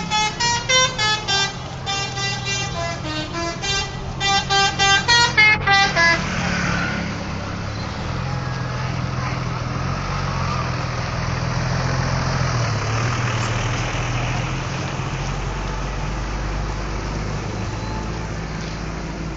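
Telolet musical horn on a bus playing a tune-like run of short, rhythmic blasts that jump between pitches. It stops about six seconds in, leaving the bus engine running with a steady low rumble.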